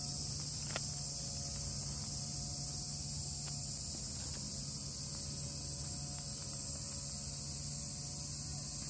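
Steady high-pitched chorus of insects such as crickets, running without a break.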